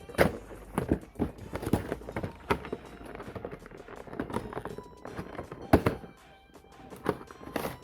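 A cardboard trading-card collection box being handled and opened: a series of sharp knocks and taps with rustling between them, the loudest about a quarter of a second in and near six seconds. Quiet background music plays underneath.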